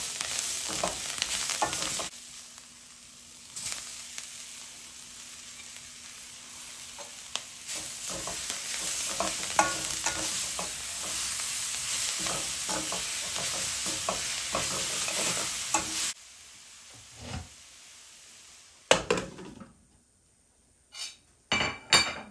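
Food sizzling in a hot pan while a spoon stirs it, with scrapes and knocks against the pan. The sizzling cuts off suddenly about 16 seconds in, leaving a few separate knocks.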